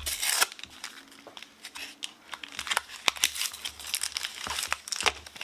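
Foil Pokémon booster pack wrapper crinkling as it is handled, with irregular sharp crackles throughout.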